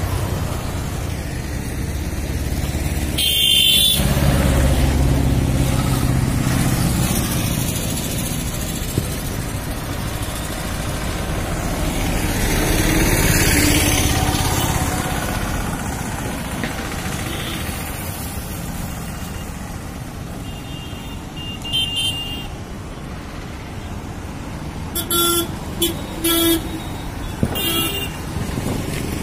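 Passing road traffic, engines and tyres, running steadily and swelling as vehicles go by, with vehicle horns tooting: once about three seconds in, and several short toots near the end.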